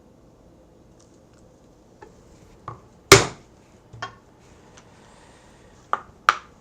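Hole punch being struck with a mallet to punch rivet holes through leather: a few light taps, one hard strike about three seconds in, then two more sharp strikes near the end.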